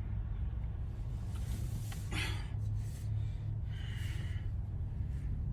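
A steady low hum, with two short breathy noises about two and four seconds in.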